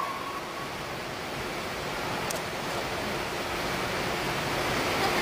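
Crowd noise in an indoor pool hall: an even hiss of audience cheering and chatter that slowly grows louder.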